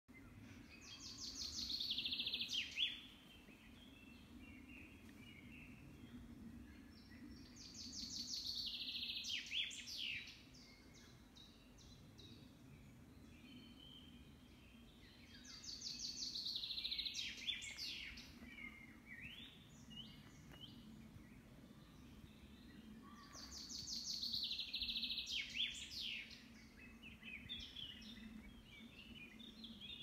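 Woodland songbird song: the same rapid run of high notes, about two seconds long and ending in a short flourish, sung four times at intervals of roughly seven to eight seconds, with softer chirps from other birds between the songs. A faint steady low background noise runs beneath.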